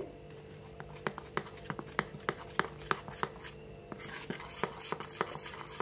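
Metal spoon stirring cornflour into oil in a steel bowl, making a paste, and clicking against the bowl about two to three times a second.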